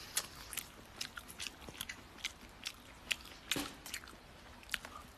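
A person chewing and biting charcoal-grilled pig's trotter close to the microphone: short, irregular mouth clicks.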